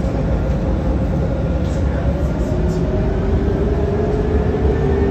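Dubai Tram running, heard from inside the passenger car: a steady low rumble and hiss, with a motor whine that rises slowly in pitch through the second half.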